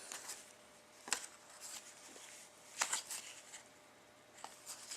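Trading cards being flipped through by hand: a few short, sharp card slaps and rustles, the strongest about a second in and twice close together near three seconds.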